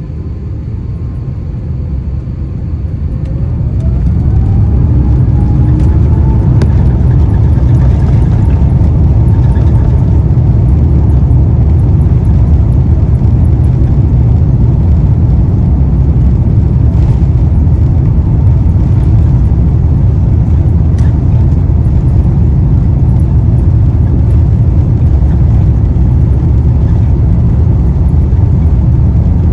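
Airbus A350-900's Rolls-Royce Trent XWB jet engines heard from inside the cabin, spooling up to takeoff power with a rising whine over the first few seconds, then running loud and steady with a deep rumble on the takeoff roll.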